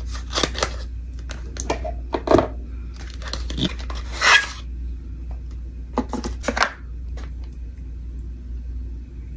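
A box cutter slitting the seal on a small cardboard cosmetics box, then the box being opened and the powder compact slid out: a string of short scrapes, clicks and card rustles, the longest and loudest a scrape a little after four seconds in. The handling stops after about seven seconds.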